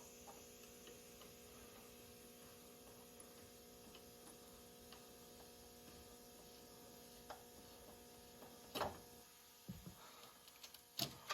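Faint steady electrical hum, with a few light clicks and knocks in the last few seconds.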